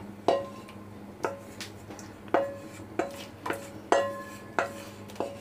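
A wooden spatula knocking against the sides of a stainless steel pot while stirring thick milk and rice pudding, about nine irregular knocks, each leaving a short metallic ring from the pot.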